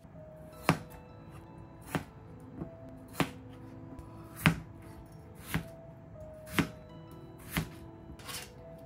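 Chef's knife cutting a peeled potato into chunks on a cutting board: about nine sharp knocks of the blade meeting the board, roughly one a second.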